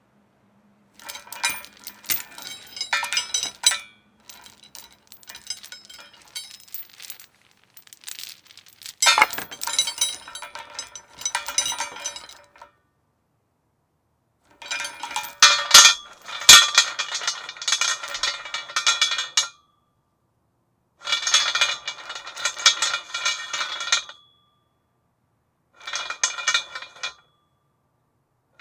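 Metal chain rattling and clinking against a metal post, in several separate bursts of jangling links with silent gaps between them, the loudest in the middle.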